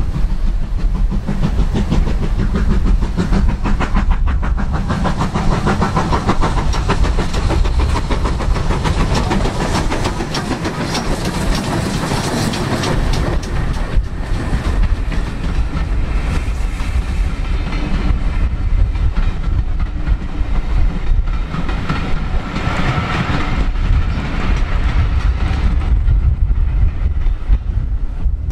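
Steam-hauled passenger train passing: the locomotive working, then its coaches clattering over the rails in a rapid, steady run of beats.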